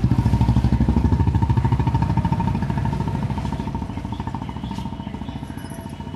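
Motorcycle engine running close by with a rapid, even pulse, loud at first and fading steadily as it moves away.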